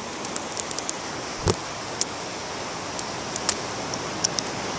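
Steady wash of ocean surf and wind noise, with scattered faint clicks and a single soft knock about a second and a half in.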